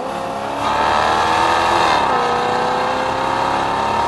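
The Maserati Quattroporte S's 4.2-litre V8 accelerating. Its pitch rises, drops sharply at an upshift about two seconds in, then climbs again in the next gear.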